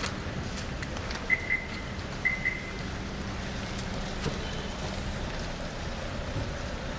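Light rain falling on wet paving and parked cars, an even patter. Under it runs a low steady hum that stops about five seconds in, and two pairs of short high chirps come about a second and two seconds in.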